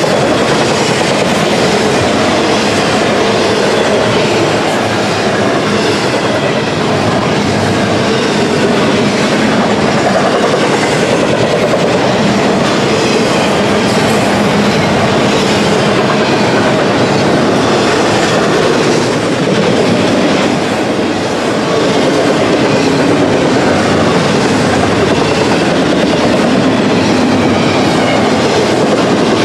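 Double-stack intermodal train passing at close range: the well cars' wheels rolling steadily over the rails, a loud, continuous rumble and clatter.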